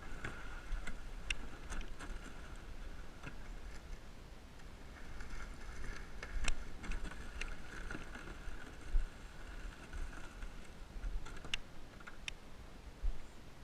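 Kayak on the water: paddle strokes and water movement, with scattered light knocks and clicks against the hull over a low rumble.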